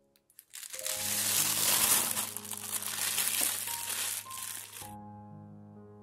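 Disposable plastic piping bag crinkling loudly as hands gather and handle it around its buttercream filling; the crackle starts about a second in and stops suddenly near the end, with soft background music underneath.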